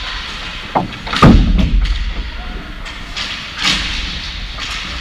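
Game sounds from a sports arena: a steady murmur of spectator voices with three sharp impact thuds, the loudest just over a second in and another near the end.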